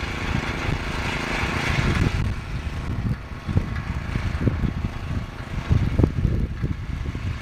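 Small gasoline garden tiller engine running steadily under load while tilling soil between potato rows, with irregular low rumbles over it.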